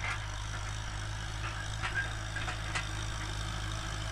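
Tractor engine running steadily under load while ploughing a furrow: a low drone with scattered light clicks and ticks.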